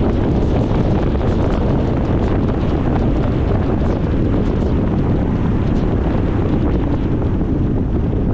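Steady wind noise buffeting the microphone, a dense unbroken noise heaviest in the low end.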